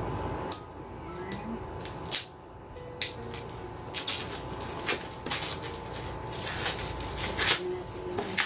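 A cardboard box and its packaging being opened and handled by hand: a quick, irregular run of rustles, scrapes and taps that grows busier about halfway through.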